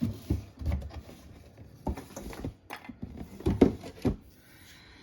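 Handling noise: a string of irregular knocks and rustles as the table fan is moved about, loudest about three and a half seconds in, with the fan's motor not running.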